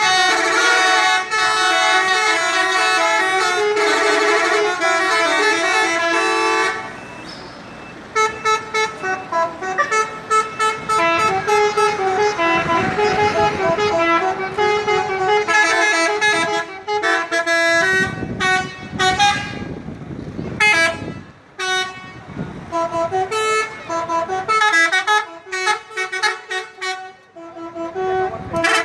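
Indonesian bus 'telolet' horns, multi-tone air horns sounding short stepped melodies and answering one another in a horn battle. Loud and continuous for the first seven seconds or so, then breaking into shorter calls and separate blasts with gaps between them.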